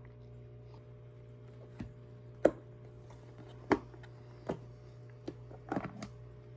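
Several sharp, irregularly spaced knocks and clicks of kitchen utensils over a steady low hum, the loudest about two and a half and nearly four seconds in.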